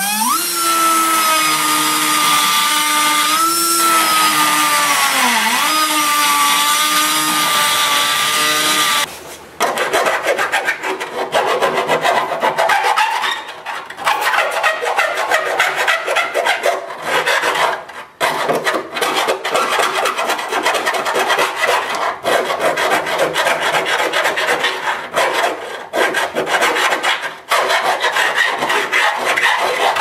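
A power tool motor runs with a steady whine for about nine seconds, its pitch dipping briefly as it bites into the steel firewall while cutting the hole for the main battery cable. Then a hand file rasps back and forth in quick strokes at the edge of the new hole.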